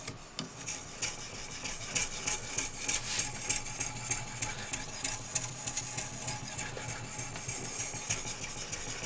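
Oiled 1000-grit Grinderman stone on a guided sharpening rig, stroking back and forth along the edge of a very hard REX 121 steel knife. A continuous gritty scraping with many small ticks, the stone cutting smoothly.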